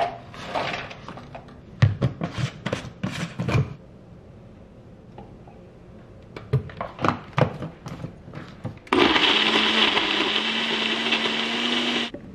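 Ninja personal blender running for about three seconds, a steady motor whir blending a berry and protein smoothie, starting about nine seconds in and cutting off sharply near the end. Before it, berries rattle into the plastic blender cup as they are poured from a bag, and a scoop knocks a few times.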